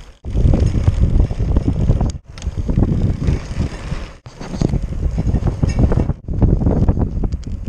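Wind buffeting the camera microphone, with road rumble from a recumbent trike being ridden, plus a few light clicks. The sound breaks off abruptly about every two seconds where short clips are spliced together.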